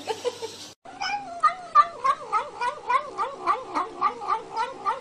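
Domestic cat vocalizing as it eats, a rhythmic, wavering "nom nom nom" mumble of about three to four short calls a second, starting about a second in.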